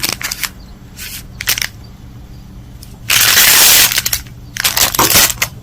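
Handling of small plastic bags of costume jewelry: a few short crackles and rustles, then one loud crinkling rustle about three seconds in that lasts about a second, then more brief crackles near the end.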